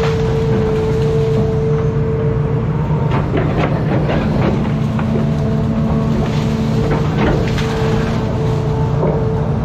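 Hitachi Zaxis 210 amphibious excavator running steadily, its diesel engine and hydraulics working the arm and bucket through brush, with a steady whine on top. Branches and brush crack and snap now and then.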